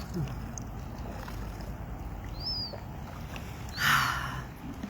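Birds calling over a steady low rumble: a couple of short high chirps, then one louder, harsher call about four seconds in.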